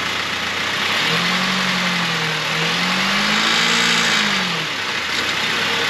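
Honda Fit engine running in drive under light throttle with its front wheels spinning free off the ground, over a loud steady rush. The engine pitch rises about a second in, dips, climbs again and falls back near the end.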